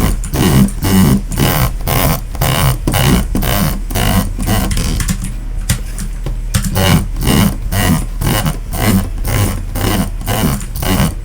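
Bloody A76 gaming mouse buttons clicked over and over at an even pace of about three clicks a second, with a short lull near the middle, over a steady low electrical hum.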